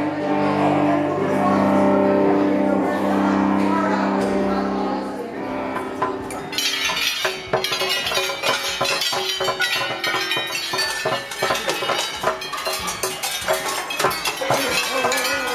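Old-time band music with held notes. About six seconds in it gives way abruptly to a stream of irregular metallic clanks and bell-like strikes: a metal music sculpture being banged on by hand.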